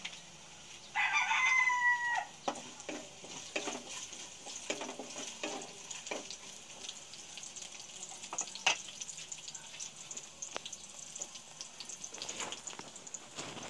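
Chopped garlic sizzling in a wok, with a wooden spatula stirring and knocking against the pan in a run of short strokes from about two and a half seconds in. About a second in, a loud, slightly falling animal call lasting about a second cuts across it.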